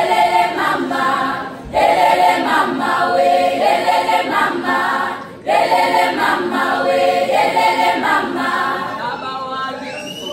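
Girls' choir singing a cappella, in phrases broken by short pauses about two and five seconds in.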